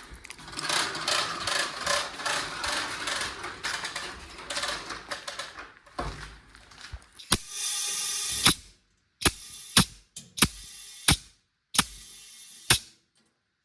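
Retractable air hose reel's ratchet clicking rapidly as the hose runs on the spring-loaded drum. It is followed by a longer burst and then several short bursts of hissing compressed air that start and stop abruptly.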